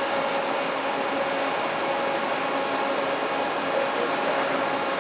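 CM85C-M chip mounter running through its start-up self-diagnostic test: a steady mechanical whir with faint steady hum tones from its motors and air system.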